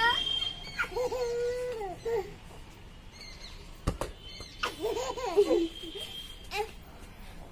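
A small child squealing and calling without words: a rising squeal at the start, a held 'aaah', then a few short cries and giggles. One sharp knock comes about four seconds in.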